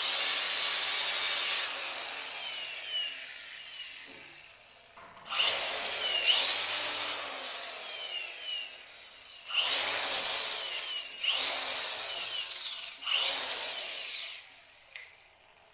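Small angle grinder with an abrasive disc grinding the steel of a front-axle steering knuckle, throwing sparks, run in about five short bursts of one to two seconds each; after each burst the motor's whine falls as the disc spins down.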